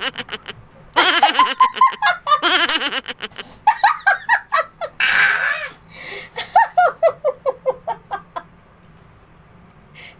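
Women laughing hard in repeated fits of quick ha-ha pulses, with a breathy, hissing stretch about five seconds in. The laughter is the reaction to sucking a sour lemon slice.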